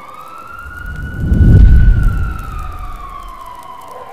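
Logo-reveal sound effect: a siren-like gliding tone that climbs and then slowly sinks, with a deep boom swelling to its loudest about a second and a half in.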